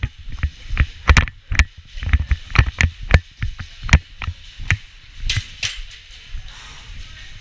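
A run of sharp, irregular knocks and clicks, two or three a second, with the loudest knocks about four and five and a half seconds in, from an indoor airsoft game in progress; the knocks thin out near the end.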